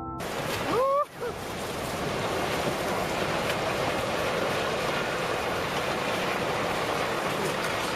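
Steady rushing noise, even and without a beat, with a short rising call about a second in.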